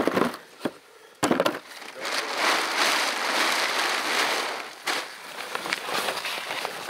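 A few sharp knocks, then a plastic tarp rustling and crinkling as it is handled and folded, thinning out about five seconds in.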